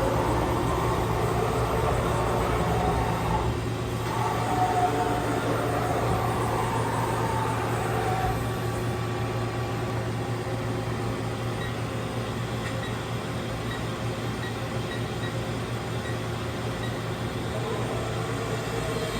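Haas VF1 vertical machining center running with a steady low hum; a wavering whine shifts in pitch through the first eight seconds, then settles.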